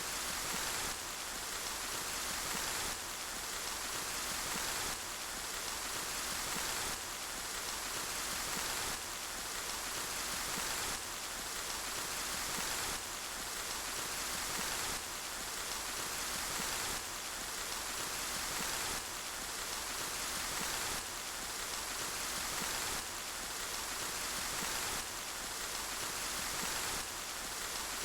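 Steady, dense rainfall with an even hiss of drops and no separate patters standing out. The level shifts slightly in a regular step about every two seconds, as a short repeating loop would.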